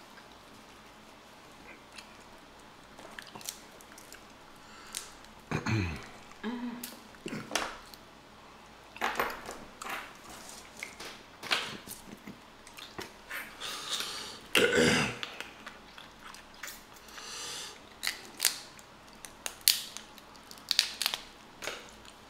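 Boiled crawfish being eaten by hand close to the microphone: shells cracking and snapping, wet chewing and sucking, and a few short low hums from the eaters. It starts quiet, then the crackling and chewing pick up after about five seconds.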